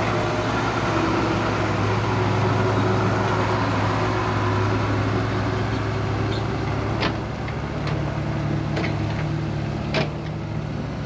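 Heavy diesel engine running steadily. Several sharp knocks come in the second half, the loudest about ten seconds in.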